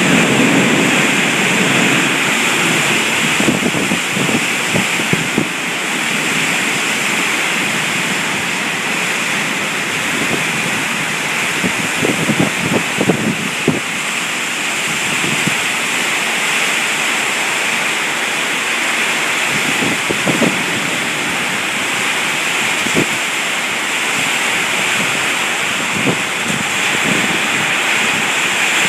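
Heavy rain from a thunderstorm falling steadily, with a short louder patter or splash every few seconds, most of them clustered about a third of the way in.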